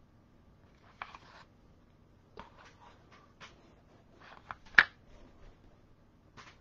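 Light clicks and rustles of small objects being handled and set down on a work desk, with one sharp click just under five seconds in.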